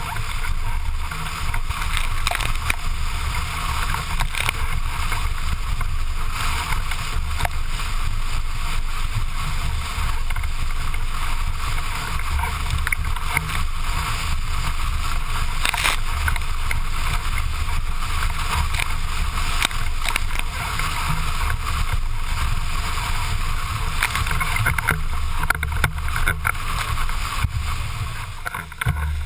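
Windsurf board planing at speed over chop: a continuous rush of water and spray with irregular slaps of the hull on the waves, and wind buffeting the board-mounted camera's microphone as a low rumble.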